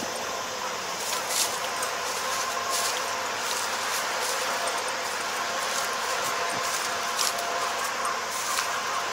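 Kubota ER470 four-row combine harvester running steadily: a constant mechanical whir with a faint steady whine and a few brief sharp ticks.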